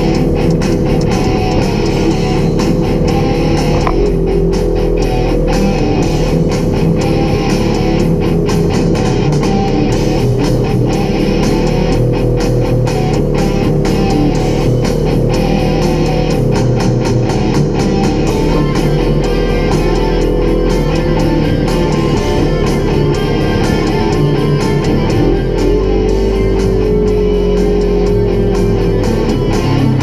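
Loud rock music with electric guitar, playing steadily.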